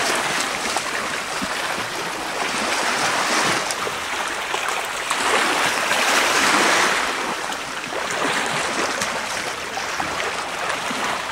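Small waves lapping and washing over a shallow gravel shore, swelling and fading every three seconds or so.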